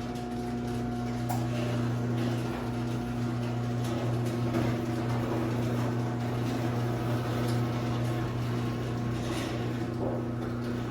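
Chain-drive garage door opener running steadily as it lowers the door, a low, even motor hum.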